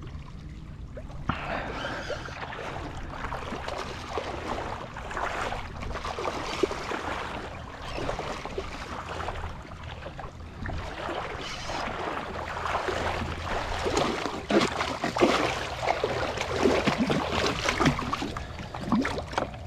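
Water splashing and gurgling close beside a kayak, in irregular splashes that grow busier and louder in the second half, as a hooked snook is fought and brought in.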